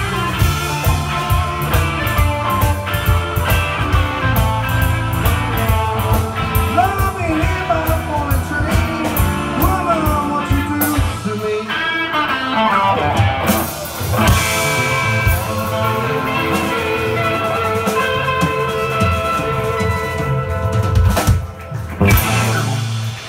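Live blues-rock band playing: electric guitar leads with bent notes over drums and bass. Near the end the band hits a final loud accent as the song closes.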